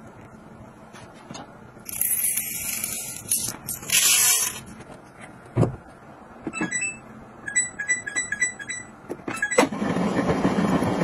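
A front-loading washing machine being loaded and started: rustling, then a knock, then a run of short electronic beeps from the control panel as its buttons are pressed. Near the end water rushes loudly into the drum.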